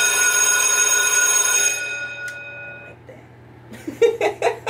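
A single bell-like chime rings and fades away, its several tones dying out one after another over about three seconds. Near the end a woman gives a few short chuckles.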